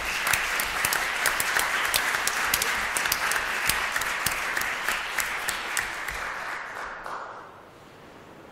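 Audience applauding, many hands clapping at once, fading out about seven and a half seconds in.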